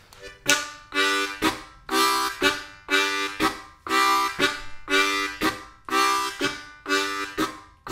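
Diatonic harmonica in C playing the train rhythm: chords on holes 1, 2 and 3, two draws then two blows, tongued with a 'nuka-tuka' articulation. It starts about half a second in and keeps a steady chugging beat.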